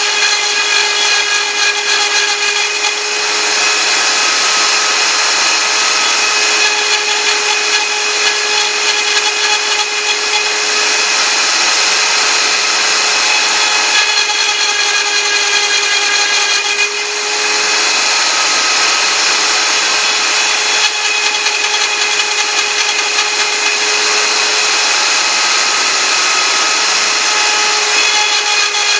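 CNC router spindle running at speed while its cutter mills Thai lettering: a steady high whine over a continuous grinding hiss, dipping briefly and shifting in tone about three seconds in and again past halfway as the tool moves along the letter paths.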